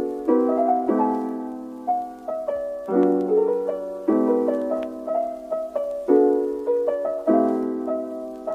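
Background piano music: soft chords struck every second or two under a slow melody, each fading before the next.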